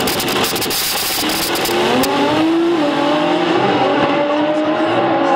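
Drag-racing cars, among them a Chevrolet Chevy, accelerating hard down the strip. The engine pitch climbs and drops back at each gear change, three or four steps. The first two seconds also hold a burst of sharp crackles.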